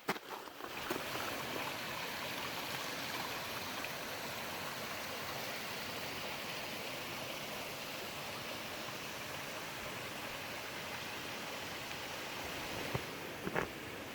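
Steady rush of stream water, swelling in about a second in, with a few light clicks near the end.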